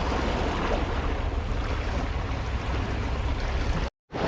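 Sea wind buffeting the microphone over the wash of surf, a steady rushing noise with a low rumble. It cuts out completely for a moment near the end.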